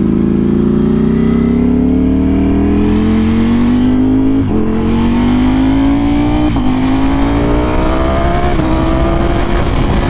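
Ducati Panigale V4R's 998 cc V4 running through an Akrapovic exhaust, accelerating hard through the gears. The engine note climbs steadily, broken by three quick upshifts about four and a half, six and a half and eight and a half seconds in.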